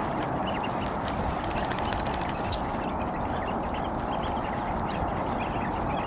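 A steady din of many ducks quacking together, with short, high calls of other birds scattered through it.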